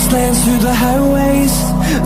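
Background pop music: a gliding melody line over sustained bass and chords.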